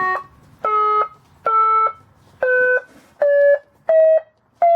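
Electronic musical horn playing single notes one after another up a scale: about seven short beeps, each a step higher than the last.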